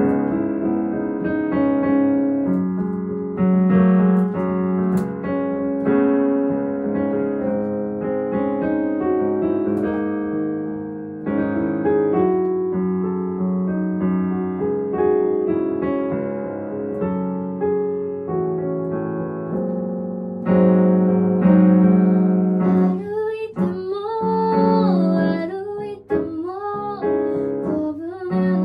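A digital piano plays a slow solo instrumental passage of a ballad. About three quarters of the way through, a woman's singing voice comes in over the piano.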